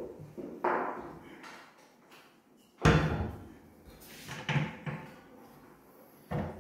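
Lift-up kitchen wall cabinet doors on gas struts being shut and opened, giving several knocks and bangs; the loudest is a sharp bang about three seconds in as a door shuts.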